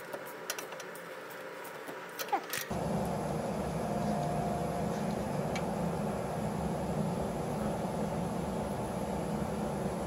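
A few light clicks, then about three seconds in a steady mechanical running noise starts abruptly and continues evenly.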